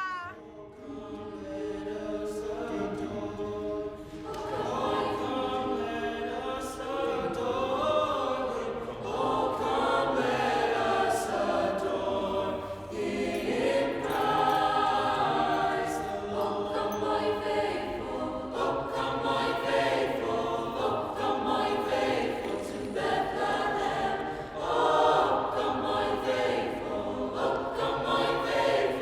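A choir singing, with sustained chords in phrases a few seconds long that swell and fall back; it grows louder about four seconds in.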